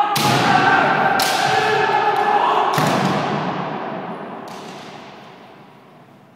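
Kendo sparring in an echoing hall: long kiai shouts and four sharp cracks of bamboo shinai strikes and stamping feet on the wooden floor, the last one fainter about four and a half seconds in. The sound then dies away in the hall's reverberation.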